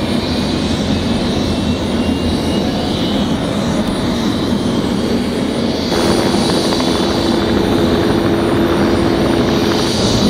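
Helicopters running on a helipad: a loud, steady engine and rotor noise. About six seconds in it gets slightly louder, with a steady hum added.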